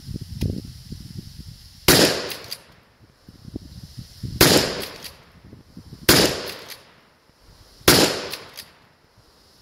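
Four 12-gauge shotgun shots from an 18.5-inch barrel, fired a second and a half to two and a half seconds apart, each dying away over about half a second. The load is Federal low-recoil law-enforcement 00 buckshot with a flight-control wad.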